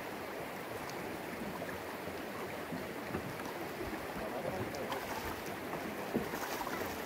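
Steady rushing of river current around a small boat, with a short sharp sound about six seconds in.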